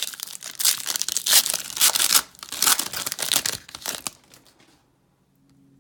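Plastic trading-card pack wrapper crinkling and tearing as it is opened by hand, a dense crackle for about four seconds that stops abruptly.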